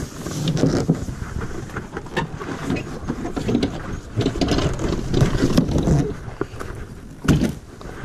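Old Town 158 canoe handled close to the microphone as it is lifted off a pickup and carried overhead across gravel: the hull rubbing and knocking, with feet crunching on gravel. A single loud thump about seven seconds in as the canoe comes down onto the gravel.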